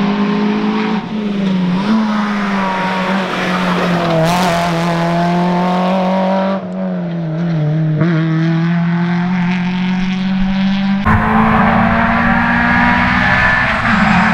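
Renault Clio Ragnotti N3 rally car's four-cylinder engine at high revs on a stage, its note holding high with brief dips in revs and recovering. About eleven seconds in the sound changes abruptly to a louder, rougher engine note with more low rumble.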